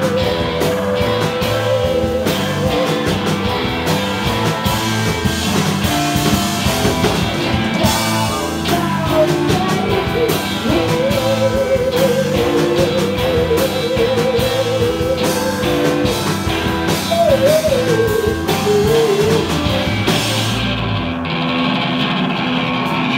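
Live rock band playing: electric guitars and drum kit, with a long, wavering held melody line on top. The cymbals drop out near the end while the band keeps playing.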